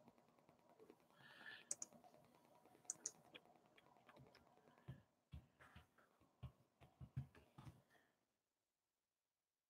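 Faint clicks and taps of typing on a computer keyboard, with a few soft low thumps, stopping about eight seconds in.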